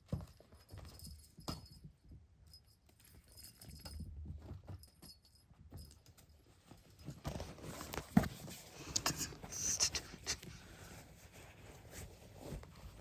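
Kittens moving and playing, making scattered light taps and scuffs. The activity gets busier about seven seconds in, with one sharper knock soon after.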